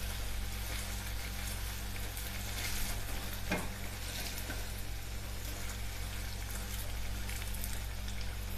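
Pieces of wheat flour, banana and jaggery batter deep-frying in hot oil: a steady sizzle with small crackles, over a steady low hum. One light knock about three and a half seconds in.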